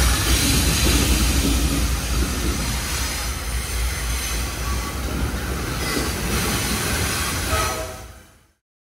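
Freight train cars rolling past with a steady rumble and some faint high wheel squeal, fading out near the end.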